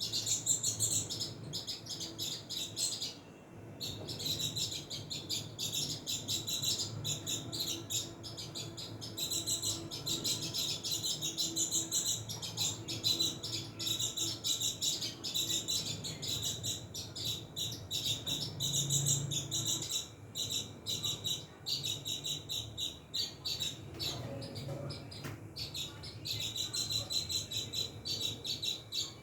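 House sparrows chirping in rapid, dense chirps that go on steadily, with a brief lull about three seconds in.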